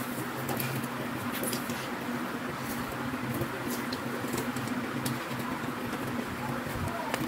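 Plastic needles of an artificial pine Christmas tree's branches rustling and crackling in short, irregular ticks as the branches are handled and fitted, over a steady low hum.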